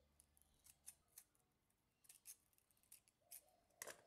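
Faint, irregular snips of scissors cutting round a Scotch-Brite abrasive pad to trim it into a circle, with a louder snip near the end.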